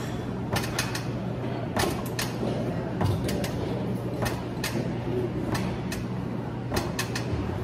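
Plate-loaded chest press machine's lever arms creaking and clicking through its repetitions, several irregular clicks over a steady low hum.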